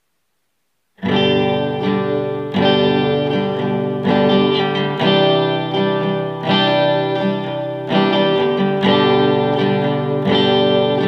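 Acoustic guitar strummed in chords, recorded through a BM-800 condenser microphone; it starts about a second in, with a fresh strum roughly once a second.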